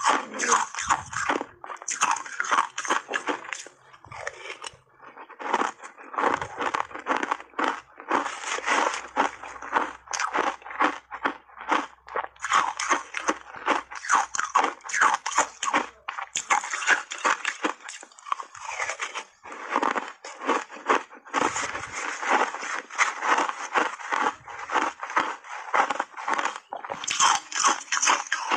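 Shaved ice coated in matcha powder being bitten and chewed right at the microphone: a dense, rapid crunching crackle, broken by a couple of short pauses between mouthfuls.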